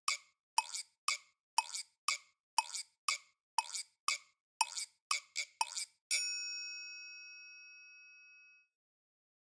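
Clock-style ticking sound effect, about three ticks a second and quickening toward the end, marking thinking time; about six seconds in a bright bell ding rings out and fades.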